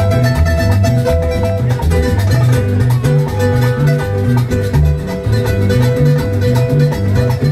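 Live band playing Latin dance music: a bouncing electric bass line, strummed and plucked acoustic guitar and a hand drum keeping a steady beat.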